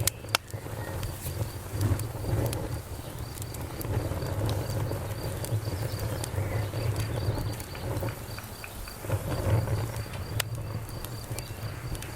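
Wood campfire crackling, with scattered sharp pops over a low rumble, while a cricket chirps in a steady run of short, high chirps.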